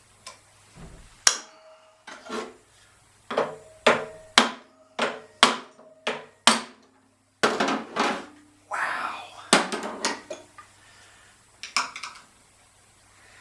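Metal tools striking and clanking on a 1969 VW Beetle generator's armature shaft, about a dozen sharp knocks spread over the stretch, some ringing briefly, as a stuck shaft key is worked loose.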